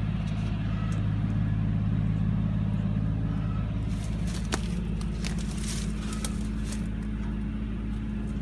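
An engine idling steadily, a constant low hum, with light clicks and knocks of handling from about four seconds in.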